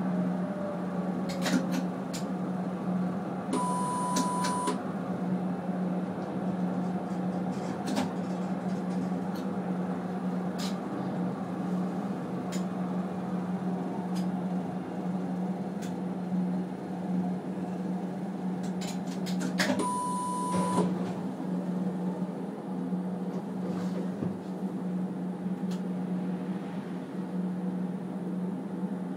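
Tram heard from inside, running with a steady low hum and scattered clicks. Two electronic beeps at one pitch, each about a second long, come about four seconds in and again about twenty seconds in.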